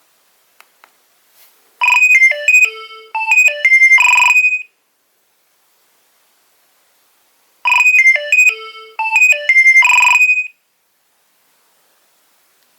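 Nokia 2300 mobile phone playing a ringtone: a short electronic melody of about three seconds, played twice with a pause of about three seconds between.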